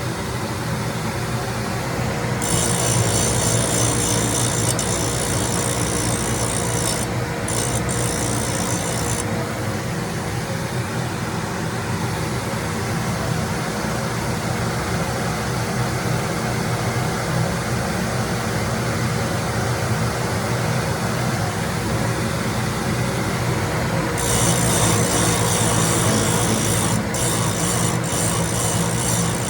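Grinder running steadily with a constant hum while the wheel grinds a cutter's teeth for sharpening; a higher hiss of grinding comes in about two seconds in for several seconds, and again near the end.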